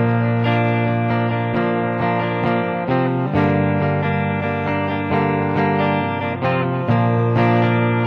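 Electric guitar strumming chords in a steady rhythm, the chord changing twice, in a song's instrumental intro.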